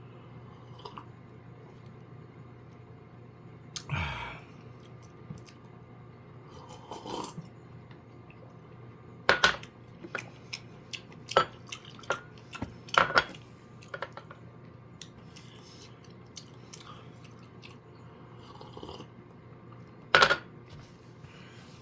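Scattered clicks and light knocks of tableware being handled, a cup or spoon set against a table or dish, with sharper clinks about nine, eleven, thirteen and twenty seconds in.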